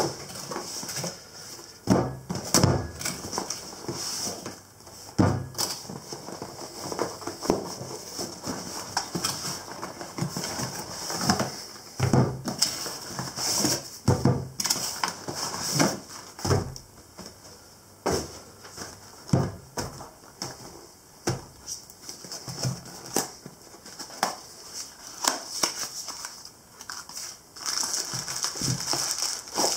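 Small cardboard boxes of steel tool holders being lifted out of a carton and set down on a wooden table: repeated knocks and cardboard rustling, with paper crinkling near the end as a wrapped part is unwrapped.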